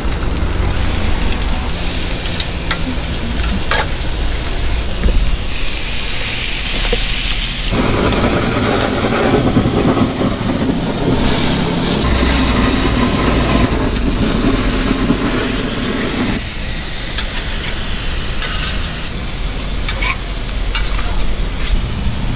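Eggs, ham and burger patties sizzling on a flat-top griddle, with scattered taps and scrapes of a spatula and tongs. From about 8 s to 16 s a handheld butane blowtorch runs over the meat with a loud rushing flame, over a low steady hum.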